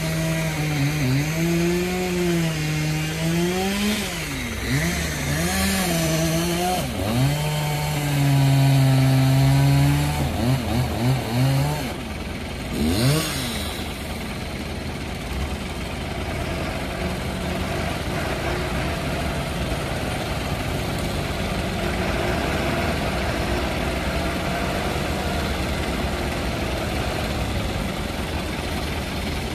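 Engines running at a log-recovery site. For the first twelve seconds one engine's pitch rises and falls repeatedly as it is revved and eased off, then a quick rev about thirteen seconds in, after which a steadier running noise holds.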